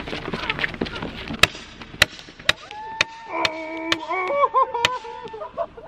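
Paintball gun fired in rapid succession: a string of about seven sharp shots, roughly half a second apart. A tune with held, stepping notes comes in under the later shots.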